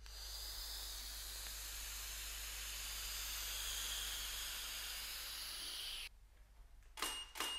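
A long, slow exhale blowing vape vapour out through the lips, a steady hiss lasting about six seconds that cuts off abruptly. Two quick clicks follow near the end.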